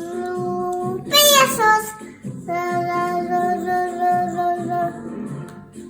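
A child singing long held notes, with a brief loud high shriek that sweeps up and down about a second in.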